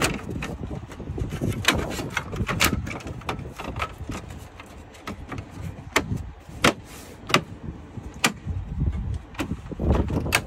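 Plastic dashboard trim and steering-column shroud pieces being handled and pressed back into place, giving a series of sharp clicks and knocks spread through, over a low steady rumble.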